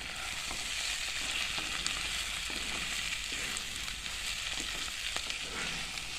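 Chicken and vegetables sizzling steadily in a hot pan as they are stirred, with a few light clicks of the spoon.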